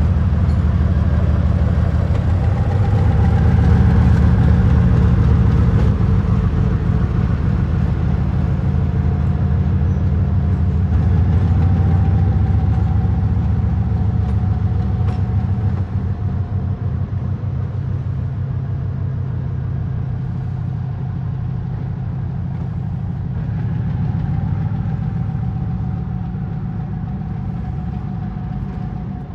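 2TE10V diesel locomotive's 10D100 two-stroke opposed-piston diesel engine running with a deep, steady throb, swelling louder a few times and easing back. A faint, steady whine sits above the engine note.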